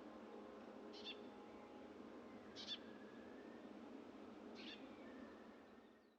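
Near silence: faint outdoor background in which a bird gives three short calls about two seconds apart.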